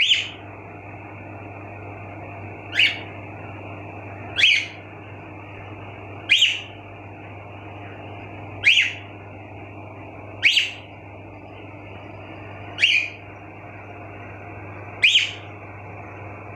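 Pet cockatiels giving short rising contact whistles, eight calls spaced about two seconds apart, some with a double note. A steady low hum runs underneath.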